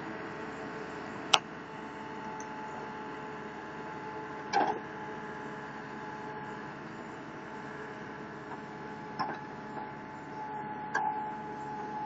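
A 27 hp mini crawler loader running steadily as its backhoe attachment digs, with a steady whine over the engine drone and four short sharp knocks, the loudest about a second in.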